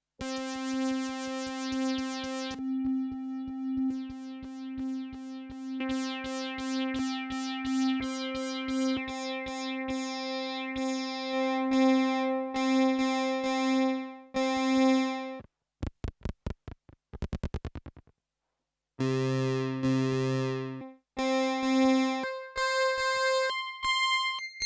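Behringer Poly D analog synthesizer playing dry: one note retriggered about four times a second for roughly fifteen seconds while its brightness opens and closes, then a quick run of short low plucks, a held low tone, and a stepped run of short notes near the end.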